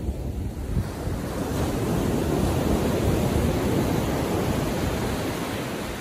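Ocean surf: a wave breaks and washes in, its rush building over the first couple of seconds and easing off toward the end. Wind buffets the microphone underneath.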